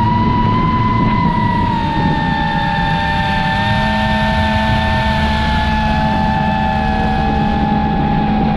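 FPV racing quadcopter's brushless motors and propellers whining at a high, nearly steady pitch that sags a little after the first couple of seconds. A rough rush of wind on the drone-mounted microphone runs underneath.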